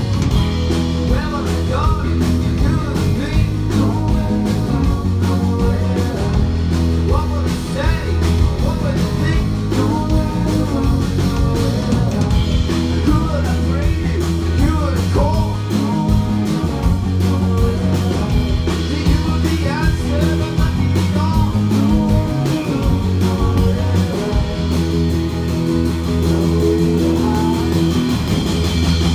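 Live band music: a man singing lead over a strummed acoustic guitar, with electric guitar and keyboards, a strong bass line and a steady beat.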